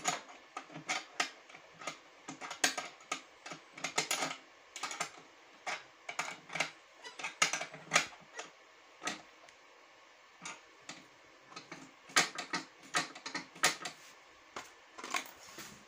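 Irregular metallic clicks and taps from the knee-lifter lever parts and a spanner being handled and fitted under an industrial sewing machine's table. The clicks come in quick clusters, thinning out for a couple of seconds about ten seconds in.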